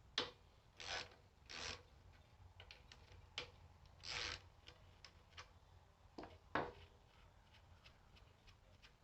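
About six faint, short scraping or rubbing sounds, irregularly spaced a second or more apart.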